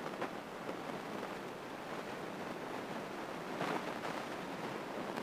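Faint steady rush of cabin noise in a small single-engine plane on final approach with full flaps, airflow and engine blended into an even hiss with no distinct engine tone.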